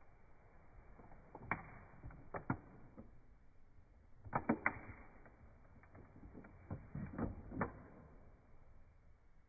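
Plastic Power Rangers Power Morpher toy being handled: scattered sharp clicks and knocks, in small groups of two or three.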